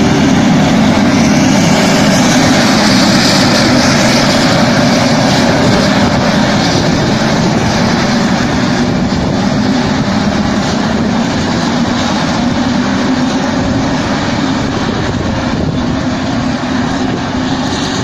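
Claas self-propelled forage harvester running under load while chopping wheat for silage, a steady heavy machine roar that grows slowly quieter as the machines pull away.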